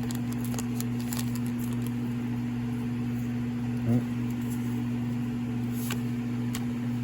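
Steady low electrical hum, with faint light clicks and one brief pitched blip about four seconds in.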